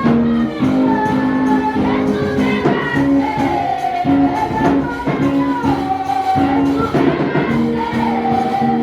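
Church music: voices singing a melody over instrumental accompaniment with held notes and a steady percussive beat.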